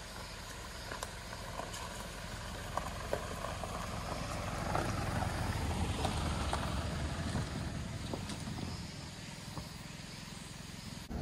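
Mitsubishi Delica D:5's clean diesel engine and tyres rumbling as it drives a rough unpaved forest road, with scattered ticks and knocks from gravel and stones under the wheels. The rumble swells in the middle and eases near the end.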